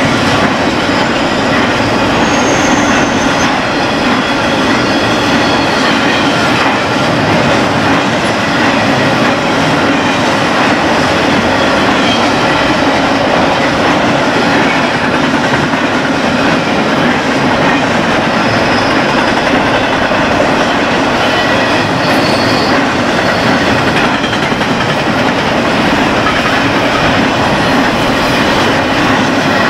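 Cars of a BNSF intermodal freight train, loaded with trailers and containers, rolling past close by: a loud, steady rumble of steel wheels on rail with clickety-clack. Brief faint high squeals come from the wheels a couple of times.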